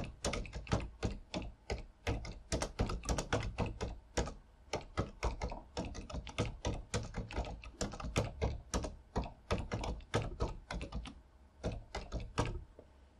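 Typing on a computer keyboard: a quick, uneven run of keystrokes with a few short pauses, stopping shortly before the end.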